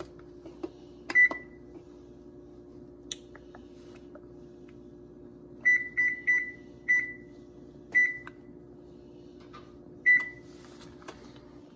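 Kitchen appliance control-panel beeps as its buttons are pressed: seven short beeps of the same pitch, one about a second in, a quick run of four around six to seven seconds, then two more spaced out. A steady low hum runs underneath.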